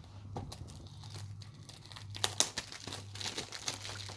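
Plastic shrink-wrap being torn and peeled off a Blu-ray case, crinkling, denser and louder from about two seconds in.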